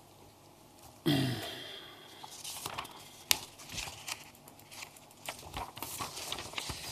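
Paper rustling and being handled near a table microphone, with scattered small clicks and one sharper click about three seconds in. A brief murmur comes about a second in.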